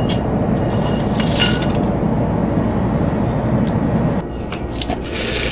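Steady, loud rumbling noise that drops away about four seconds in, with a couple of light glass clinks as green glass soju bottles are handled at a drinks fridge.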